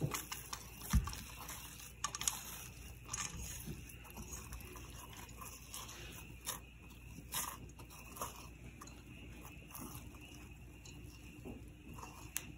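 Fork scraping cooked spaghetti squash flesh into strands, a run of soft, irregular scrapes and clicks, with a dull bump about a second in.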